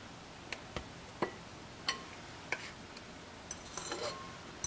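A metal fork clinking and scraping against a bowl as seasoned ground beef is worked, with a handful of light, separate clinks at uneven intervals and a quick cluster of them near the end.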